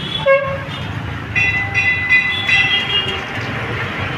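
Steady road-traffic noise with vehicle horns. One short, lower honk comes just after the start, then a string of short, higher beeping toots in the middle.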